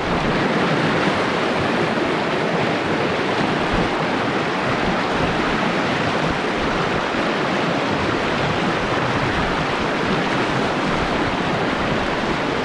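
A fast mountain river rushing steadily over its rocks.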